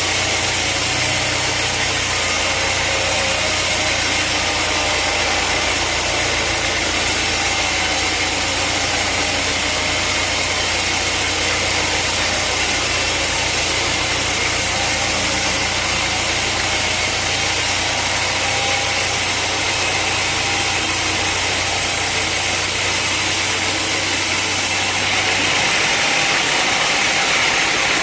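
Sawmill engine running steadily, a loud mechanical drone with a low hum under a hissing noise. Near the end the low hum drops away and the sound turns hissier.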